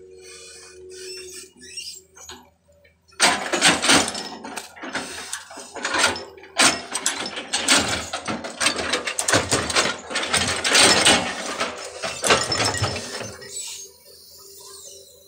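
Irregular mechanical clattering and ratcheting with many sharp clicks, starting about three seconds in and dying away near the end.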